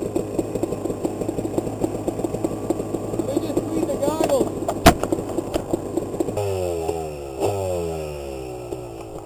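Dirt bike engines idling with an uneven popping beat and a sharp click about five seconds in, then an engine is revved and its pitch falls away twice.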